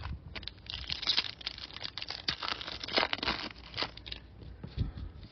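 Crinkly wrapper of a baseball card pack being handled, with rapid crackling through the first four seconds and a soft thump near the end.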